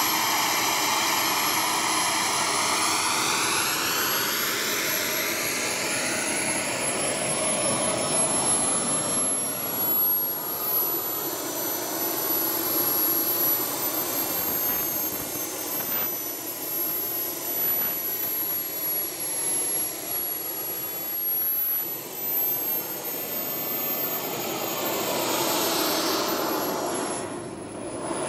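Steady engine drone with a thin high whine above it; a set of tones slides down in pitch over the first few seconds, then the sound holds steady.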